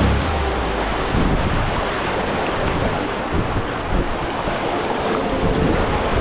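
Whitewater rapids rushing around an inflatable kayak, a steady wash of moving water with wind noise on the microphone.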